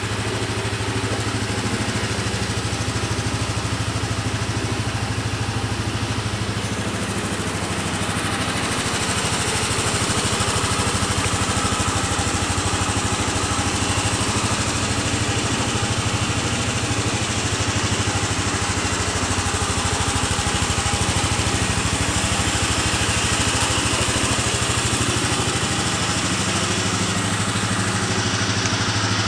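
Honda Swing 125 scooter's single-cylinder four-stroke engine idling steadily.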